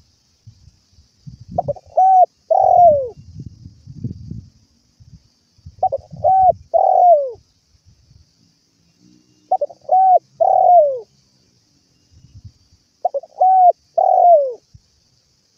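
Spotted dove cooing its calling song: four phrases a few seconds apart, each two short coos followed by a longer coo that slides down in pitch.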